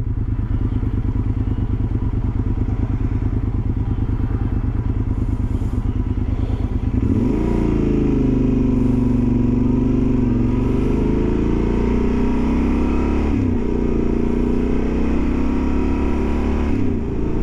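Motorcycle engine idling with an even pulse while stopped in traffic. About seven seconds in, the bike pulls away and the revs climb, with a few dips in pitch as it shifts up through the gears.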